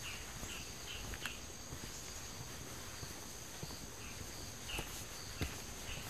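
Forest ambience: insects trilling steadily at a high pitch, with short high chirps coming a few at a time. A few soft knocks of footsteps on the path are also heard.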